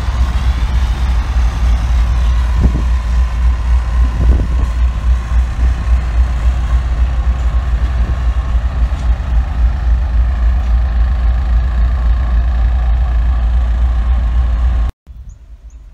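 CSX diesel locomotives running as they roll slowly past, a loud, steady deep engine rumble. The sound cuts off suddenly near the end.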